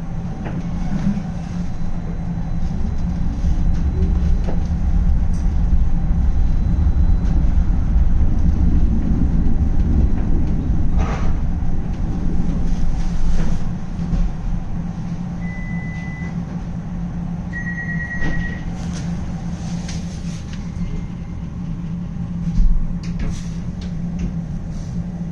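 Interior of a tram on the move: a steady low rumble and hum of wheels and drive, loudest through the first half and easing off about halfway through. Two short high electronic beeps follow, and a single thump comes near the end.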